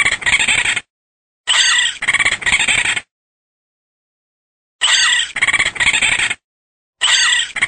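Raccoon calls: the same short high-pitched call, about a second and a half long, repeated four times with silence between.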